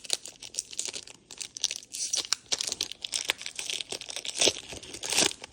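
Pokémon booster pack's foil wrapper crinkling in the hands: a dense run of quick crackles, a few louder ones near the end.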